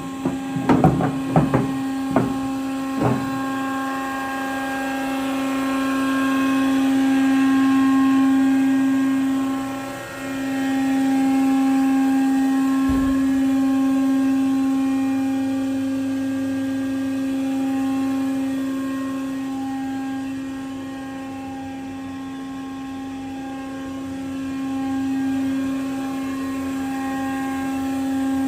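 Horizontal band saw running under power: a steady motor hum with a clear pitch that dips briefly about ten seconds in. A few sharp knocks come in the first three seconds.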